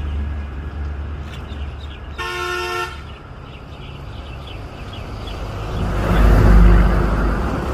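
Road traffic rumbling, with a single short vehicle horn toot about two seconds in and a vehicle passing louder near the end. Faint high bird chirps sound over the traffic.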